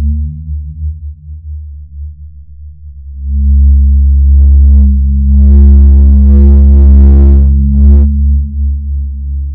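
Deep electronic drone of a suspense film score: steady low tones that swell sharply about three seconds in. A harsher, buzzier layer rises over the drone for a few seconds, then drops away near the end.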